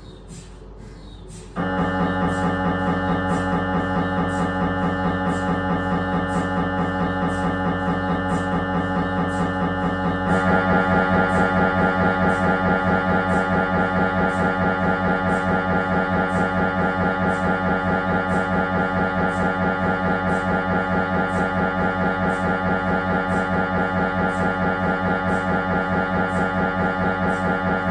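Siemens Magnetom Avanto 1.5 T MRI scanner's gradient coils running an imaging sequence: a loud pitched buzz pulsing fast and evenly. It starts suddenly about a second and a half in and turns louder and brighter about ten seconds in.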